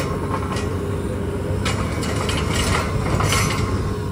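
Truck-mounted borewell drilling rig's engine running steadily, with three short, harsh bursts of noise from the rig about a second apart in the second half.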